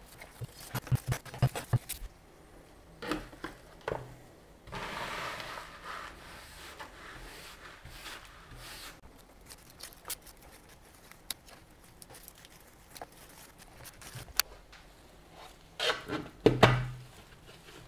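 A hand brush sweeping spilled potting soil into a plastic dustpan, a scratchy rustle lasting a few seconds, amid the rustle of leaves and small knocks as a potted plant is handled. A louder knock comes near the end.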